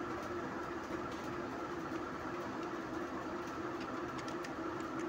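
Steady background hum with a few steady tones running through it, and a few faint clicks in the second half that fit computer keyboard keys being typed.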